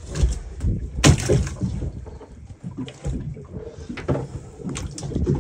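Water sloshing and splashing in the bottom of a small fishing boat, with several sharp knocks, the loudest about a second in.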